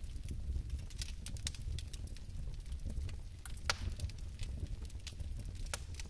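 Bioethanol fireplace flames burning with a steady low rumble and scattered sharp crackles, one louder crack about three and a half seconds in.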